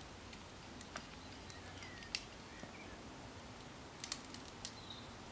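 A handful of sharp, isolated clicks and taps, irregularly spaced, over a faint steady background, with a brief faint bird chirp about two seconds in.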